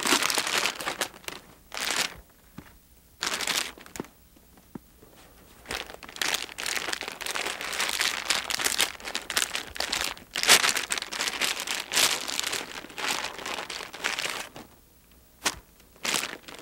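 Plastic sample bags holding hay crinkling and rustling as they are handled, in irregular bursts with a few short pauses.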